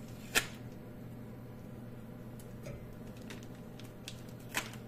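A sharp click about half a second in and another near the end, with a few faint ticks between, over a steady low hum.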